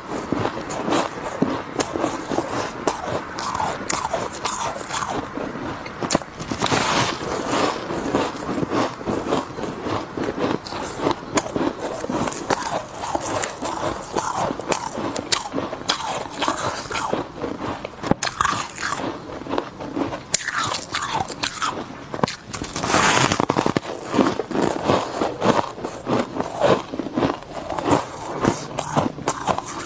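Close, continuous crunching as chunks of refrozen deep-freezer frost are bitten and chewed, the icy crystals crackling and snapping, with a few louder bites. At times the frost block is also crushed between the hands.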